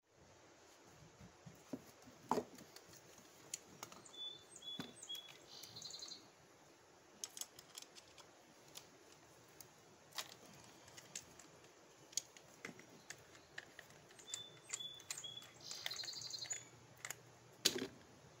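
Light clicks and taps of an angle grinder and its disc being handled while the disc is changed, the grinder not running. A bird sings the same short chirping phrase twice in the background.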